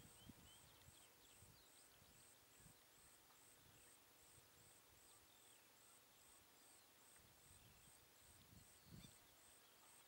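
Near silence: faint bird chirps and short whistles over a faint, even high ticking, with occasional soft low rumbles.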